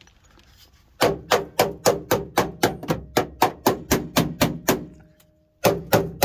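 Rapid knocking on the welded steel inner sill of a Ford Cortina Mk4, about four knocks a second, each with a short metallic ring. It stops briefly and starts again near the end. The knocks test the repaired sill, which sounds solid.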